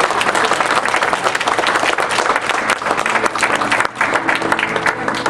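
Audience applauding, many hands clapping together; the clapping thins out a little near the end.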